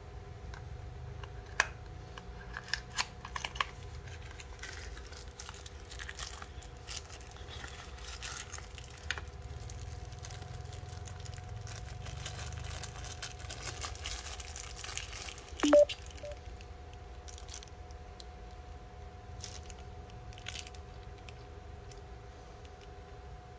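Handling noise from hands working with small parts: rustling and crinkling with scattered clicks, and one sharp knock about 16 seconds in. A steady hum runs underneath.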